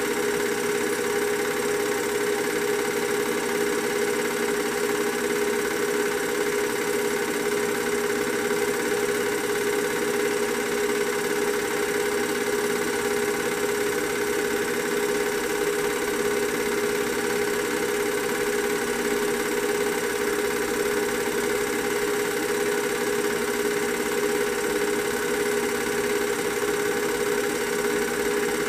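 A steady mechanical hum at one constant pitch, with a faint hiss beneath it; it never rises, falls or breaks.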